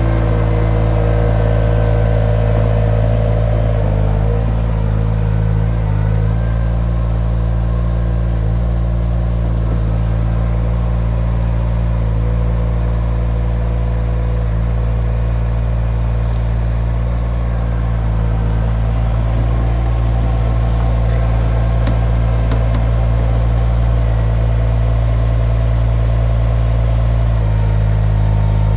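Mini skid steer engine running steadily at high revs, its pitch shifting briefly a few times, with a few faint clicks.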